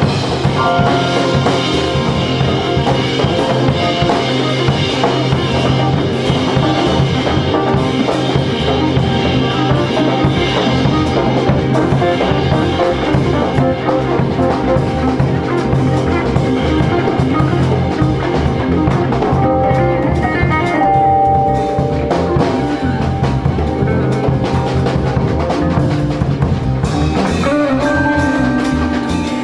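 Live band music: drum kit keeping a steady beat under guitar and held instrumental notes.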